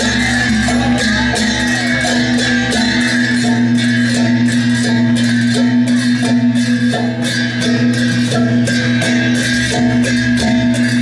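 Music with plucked strings over a steady beat.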